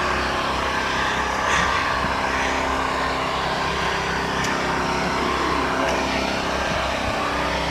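A motor engine running steadily, with a faint even hum.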